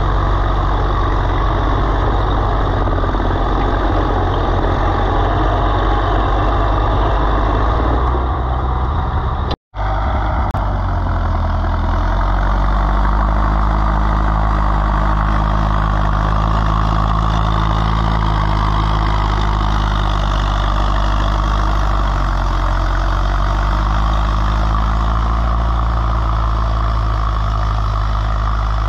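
Oliver tractor engine running steadily under load while pulling a moldboard plow through sod. The sound drops out for an instant just under ten seconds in, then carries on.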